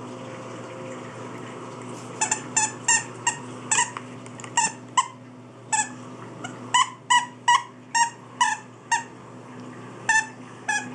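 A squeaky plush dog toy squeaking about twenty times in quick, irregular runs as a puppy chews it, heard from a video playing on a laptop's speakers.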